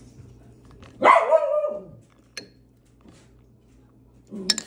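A dog barks once about a second in, the call falling in pitch at its end.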